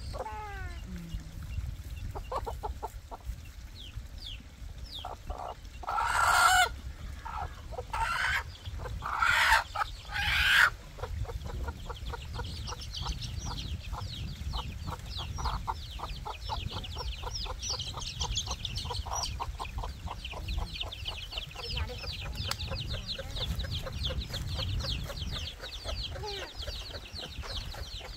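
A flock of chickens clucking, with four loud calls close together between about six and eleven seconds in. After that comes a dense, steady run of short high chirps.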